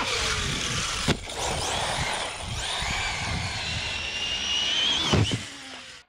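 ARRMA Talion XL RC car with a brushless Hobbystar 2000 kV motor, driven hard over gravel and dirt: a rush of tyre and gravel noise under a high motor whine that rises with throttle. A sharp knock comes about a second in, more knocks near the end, then the sound cuts off suddenly.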